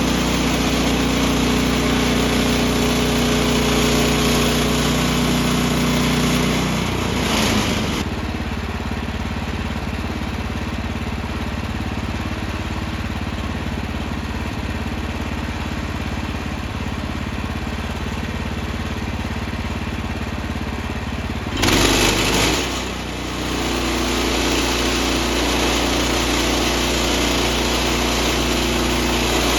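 Gas engine of a portable band sawmill running. Its steady note changes to a lower, rougher sound about seven seconds in. A short louder surge comes a little past twenty seconds, and then the first steady note returns.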